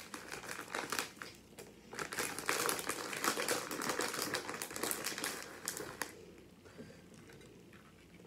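Plastic bag of shredded cheddar cheese crinkling and crackling as it is handled, stopping about six seconds in.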